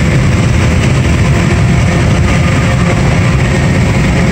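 2017 Volkswagen Jetta's 1.8 TSI turbocharged four-cylinder, with the muffler deleted, heard from inside the cabin at high revs under hard acceleration: a loud, steady exhaust drone.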